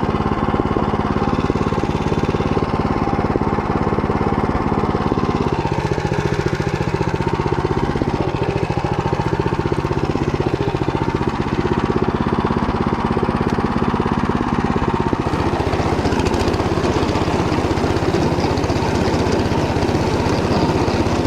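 Small single-cylinder walk-behind tractor engine running steadily under load, driving a Motor Sich rotary tiller that churns through barley stubble and soil. The engine note shifts slightly about five seconds in and again about fifteen seconds in.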